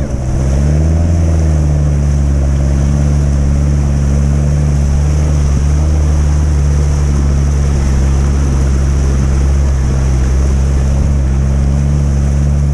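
Land Rover 110's engine running steadily under load as the vehicle wades through deep water, with the rush and splash of its bow wave. The engine note dips briefly and picks up again about a second in, then holds steady.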